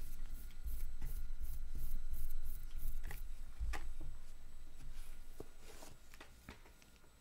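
Hands handling a plastic painting handle with a miniature on it: quick scratchy rubs about three a second, then a few soft knocks and bumps as it is turned and set down on a cloth.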